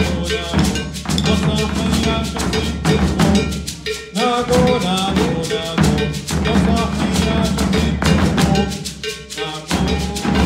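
Brazilian drum ensemble playing a driving rhythm on large surdo bass drums and snare drums. Voices sing over the drumming at times, most clearly about four seconds in.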